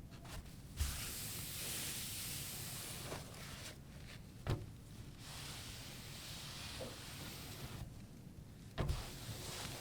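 Cafe foley: hissing in stretches of a few seconds, typical of an espresso machine's steam wand, with three dull knocks about a second, four and a half seconds and nine seconds in.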